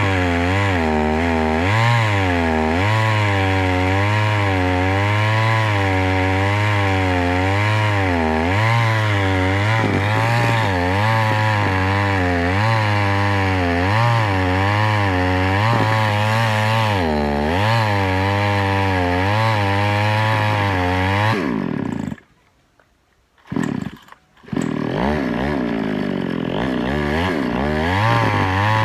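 Chainsaw running hard, its engine pitch rising and falling over and over as it works. About two-thirds of the way through the pitch drops and the sound cuts out for about three seconds, with one short burst in the gap, then the saw is running again.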